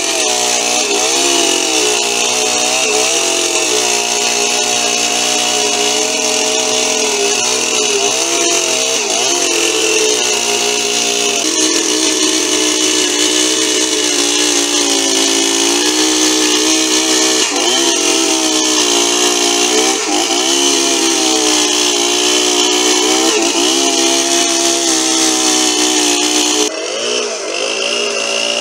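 Husqvarna 61 two-stroke chainsaw running at high revs while ripping a log lengthwise. Its engine note dips briefly now and then as the chain loads up in the wood. Near the end the sound drops a little and changes.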